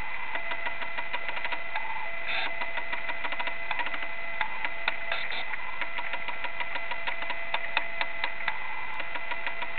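Steady hiss with a faint constant high tone, crossed by frequent small clicks and crackles.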